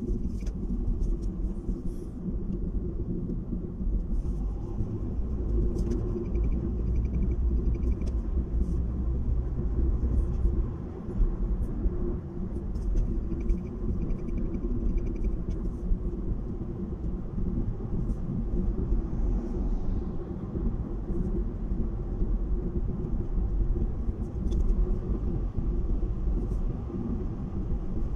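Steady low road and engine rumble of a car cruising at highway speed, heard from inside the cabin, with occasional faint clicks.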